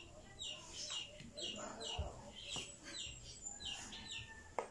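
A bird chirping over and over in short, high, falling notes, about two or three a second, with a light knock near the end.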